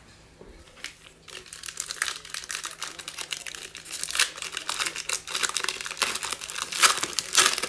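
Foil wrapper of a Panini Mosaic basketball card pack crinkling and crackling as it is torn open by hand. The crackling starts about a second in and is loudest near the end.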